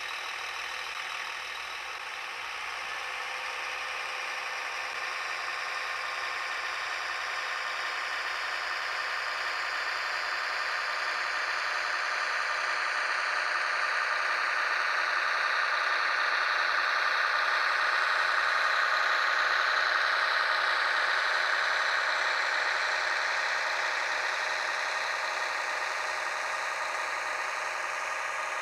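Märklin 37730 model of a DB class 648.2 (LINT 41) diesel railcar, its sound decoder playing a running diesel engine through the model's small speaker, with the model rolling along the track. It grows louder to a peak about two-thirds of the way through, then eases off as the railcar passes.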